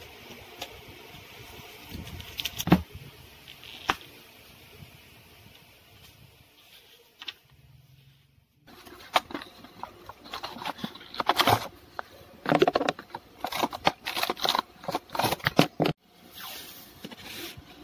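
Rustling and crinkling of plastic-wrapped washi tape and sticker packets being handled, then paper and tape being pressed and peeled in a journal: scattered crinkles and light taps, a short break about eight seconds in, then a dense run of crackly rustles and scrapes.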